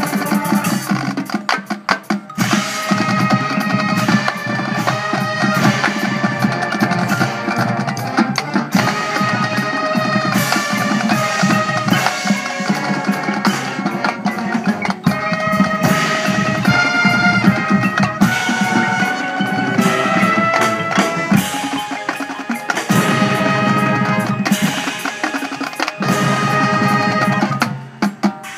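Marching band playing: sustained brass and wind chords over a drumline's snare rolls and bass drum hits, dropping away near the end.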